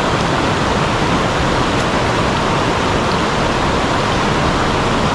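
River water rushing steadily over rocks, an even, loud hiss with no breaks.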